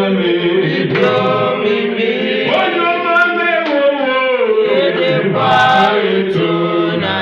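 A man leading a gospel praise song, singing into a microphone, with other voices in the hall singing along.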